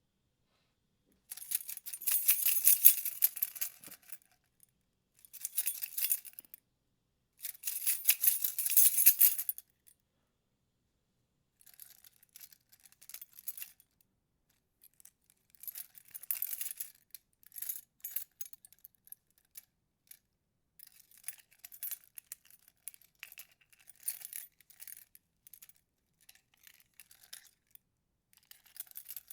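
A bunch of keys shaken and jangled in bursts: three loud, dense rattles of a second or two in the first ten seconds, then lighter, scattered jingles and clinks.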